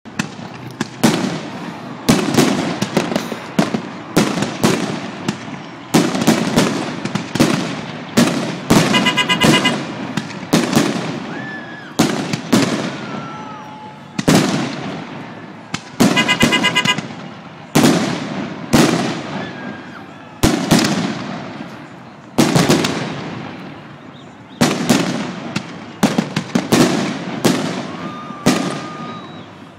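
Aerial fireworks shells bursting in quick succession, loud booms every second or so, each trailing off in echo. Twice a short pulsing high beep sounds between the bursts.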